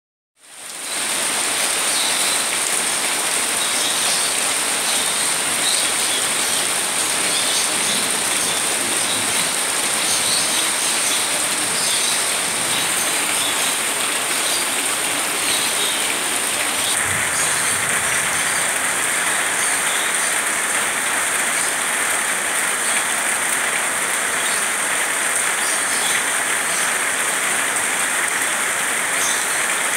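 Heavy tropical rain pouring steadily, a dense even hiss of rain on leaves and surfaces with scattered drips from the eaves. The hiss grows a little brighter about halfway through.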